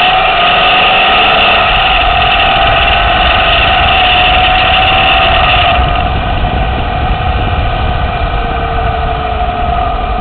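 A 2010 Lexus LS 460L running: a steady mechanical hum with a slowly wavering tone over a low rumble. The upper part of the sound drops away about six seconds in, and no separate clicks stand out.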